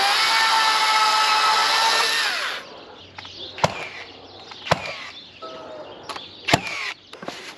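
A cordless power tool runs at a steady high speed on a fence rail and winds down about two and a half seconds in. Then come four sharp knocks, unevenly spaced, as the rail is worked into place.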